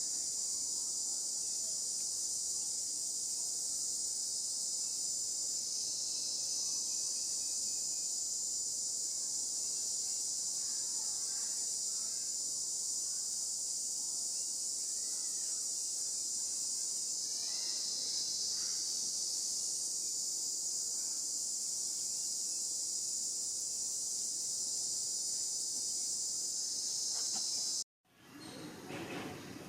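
Steady, high-pitched, unbroken chorus of insects such as cicadas or crickets, with a few faint short calls beneath it. It cuts off suddenly near the end and a different, lower sound begins.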